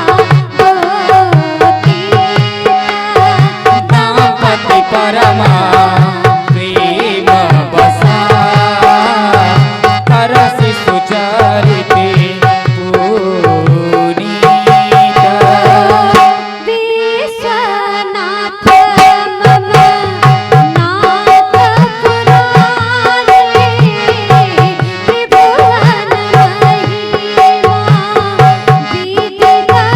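Devotional Indian music: tabla keeping a steady rhythm under a bending melody line and a held drone note. The tabla drops out for about two seconds midway, then comes back in.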